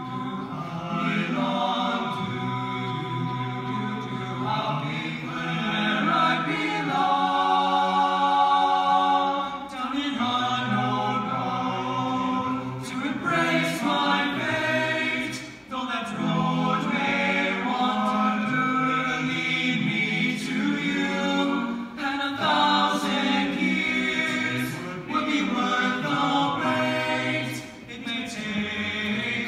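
Male a cappella ensemble of about ten voices singing unaccompanied in close harmony, holding chords, with brief breaks between phrases.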